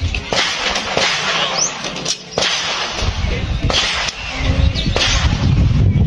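Several pistol shots fired in quick succession, sharp cracks mostly in the first half, then a low rumble setting in about halfway through.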